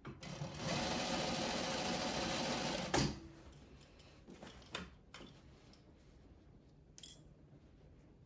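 Juki industrial sewing machine stitching steadily for about two and a half seconds, then stopping with a sharp clack. A few light clicks of the fabric being handled follow.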